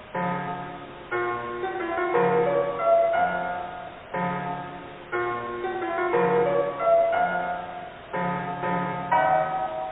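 Piano music: a chord is struck about once a second under a short melody, and the phrase loops every four seconds or so. The sound is muffled, with no treble.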